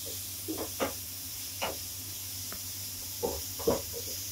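Onion, green chilli and ginger-garlic paste sizzling in a nonstick frying pan with a steady high hiss, while a wooden spatula stirs and scrapes against the pan in several short strokes.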